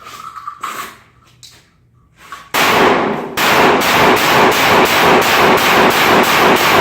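9mm Glock 17 pistol firing in a rapid string, about three shots a second. The first shot comes about two and a half seconds in, and each shot runs into the next in a continuous loud smear.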